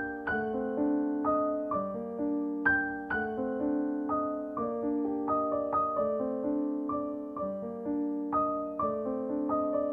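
Background piano music: a gentle tune of single notes, each struck and left to fade, about two notes a second.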